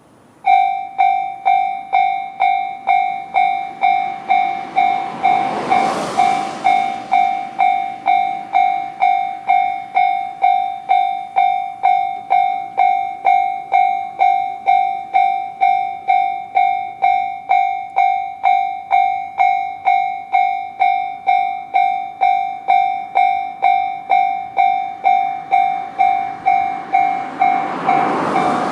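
Japanese level-crossing warning bell (JR standard electronic tone) starting about half a second in and ringing evenly at about two strikes a second. A whoosh swells and fades about six seconds in, and the approaching E129-series train's noise builds near the end.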